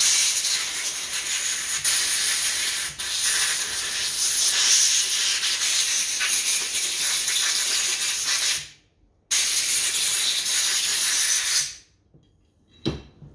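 Compressed-air blow gun blasting out the inside of a steering box ball screw nut to dry off brake cleaner: one long hiss of about nine seconds, a brief break, then a second blast of about two and a half seconds.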